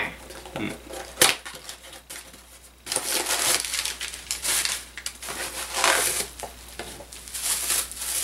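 Plastic bubble wrap crinkling and crackling as it is handled and peeled off a small packaged figure, starting about three seconds in and going in uneven surges. A sharp click comes about a second in.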